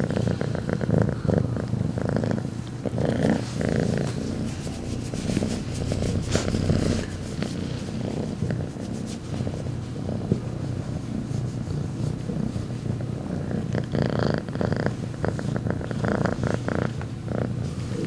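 Domestic cat purring very loudly and continuously while being petted, the purr swelling and fading in repeated waves.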